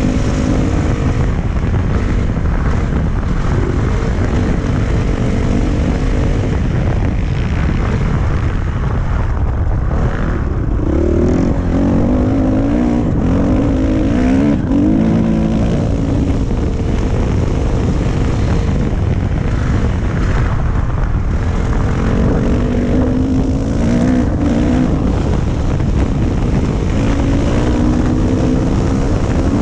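Dirt bike engine running as the bike is ridden, its pitch rising and falling with the throttle and gear changes, under heavy wind noise on the microphone. The engine note stands out most about ten seconds in and again in the last third.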